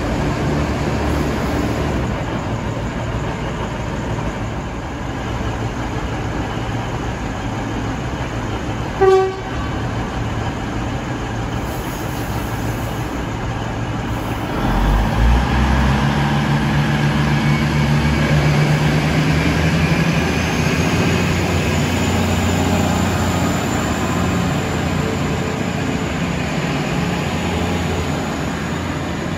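V/Line VLocity diesel multiple unit running alongside the platform, its diesel engines throttling up about halfway through, followed by a faint rising whine. A short horn toot sounds about nine seconds in.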